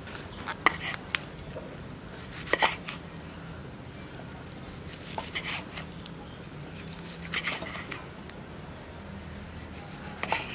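A few scattered short clicks and knocks, in about six brief clusters, over a faint steady low hum.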